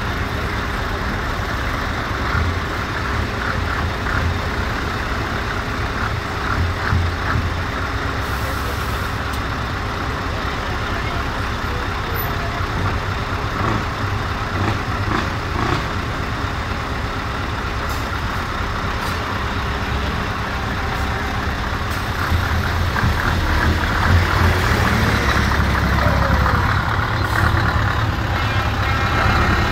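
Heavy trucks' diesel engines running in a convoy, a steady drone that grows louder over the last third.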